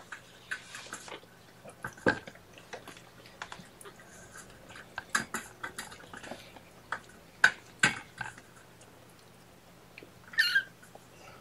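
Scattered light clicks and taps, the loudest about two-thirds of the way through, with a cat's short mew near the end.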